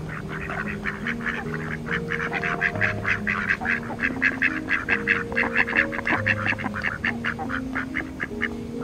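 Mallard ducks quacking in a rapid, continuous run of short calls, several a second, thinning out near the end.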